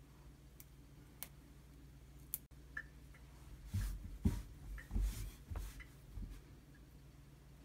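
A daikon radish rubbed and wiped with a cloth on a wooden cutting board: a run of soft scrubbing and bumping sounds from about four seconds in, lasting a couple of seconds, after a few faint ticks of fingers picking at the radish.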